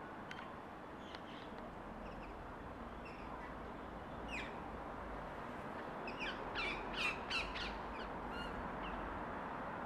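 Birds calling in short, harsh calls: a few about four seconds in, then a cluster between six and seven and a half seconds. A steady low background rumble runs underneath.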